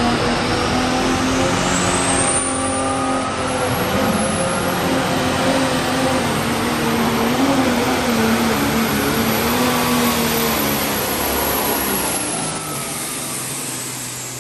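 Turbocharged diesel engine of a Light Pro Stock pulling tractor running at full throttle under load as it drags the weight sled, with a high turbo whistle rising over the first two seconds. Near the end the engine eases off and the whistle falls away as the pull ends.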